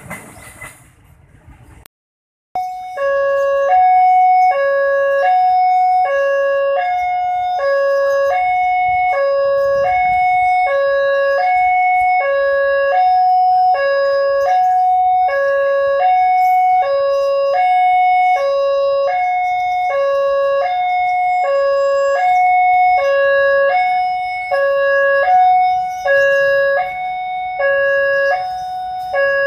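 Railway level-crossing warning alarm sounding a repeating two-tone electronic signal, a lower and a higher tone alternating steadily, warning that a train is approaching. It starts about two and a half seconds in, after a brief silence.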